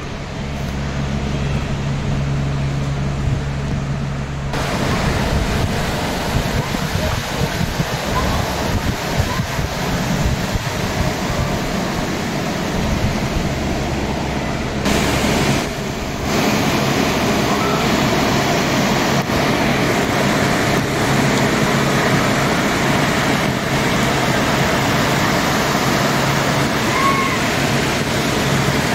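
A shallow river rushing over a stony bed and small cascades, making a steady rush of water. A low steady hum sits under it for the first few seconds and again near the end.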